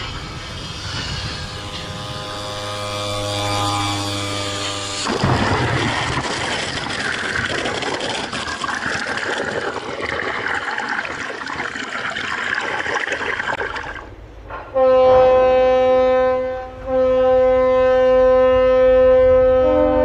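A cargo ship sliding sideways down greased launch ways, a steady grinding tone from the hull, then about five seconds in it hits the water and a loud wash of splashing water and spray takes over. Near the end a loud, steady horn sounds, breaks off briefly and resumes.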